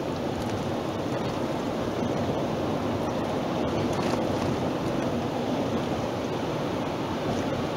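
Steady road noise inside a moving car's cabin: tyres and engine at highway speed.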